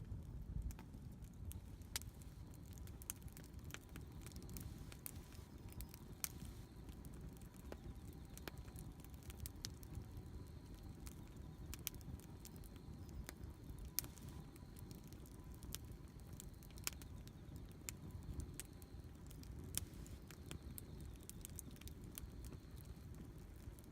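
Wood campfire burning, with scattered sharp crackles and pops from the wood over a low steady rumble.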